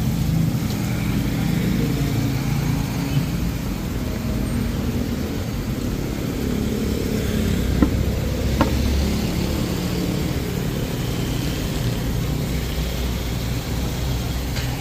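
A motor vehicle engine running steadily at low revs, with two short sharp clicks about eight seconds in.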